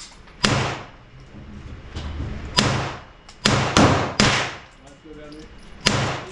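Six gunshots at an uneven pace, with a quick group of three about halfway through, each leaving a short ringing tail.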